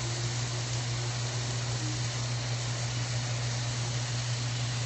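Diced chicken frying in a hot wok, sizzling with a steady even hiss, over a steady low hum.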